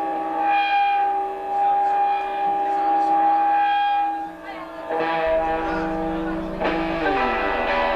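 Live band music: held, ringing electric guitar tones sustain, then a low bass note comes in about five seconds in and a new guitar chord is struck shortly after.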